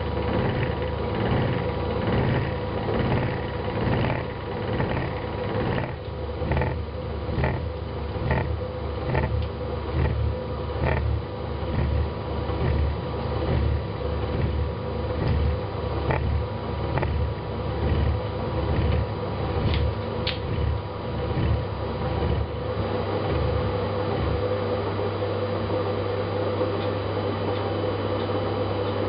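Harrison milling machine hobbing a T5 timing pulley: the spindle drives a hob cutting teeth into a metal blank, with a pulsing low machine rumble and, for a few seconds, regular ticks from the cut about every 0.7 s. After about 23 s the pulsing gives way to a steady hum.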